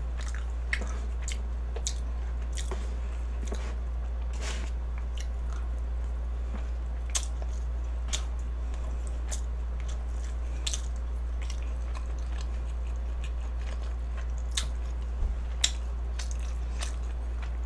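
A person chewing and biting food close to the microphone: scattered short crunches and wet clicks, about one every second or so, over a steady low hum.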